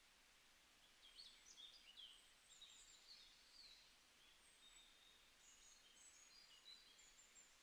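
Near silence: faint background hiss with scattered faint, high, short chirps of small birds.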